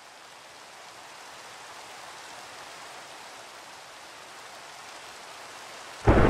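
Steady rain hiss that slowly grows louder, then a sudden loud thunderclap breaks in near the end.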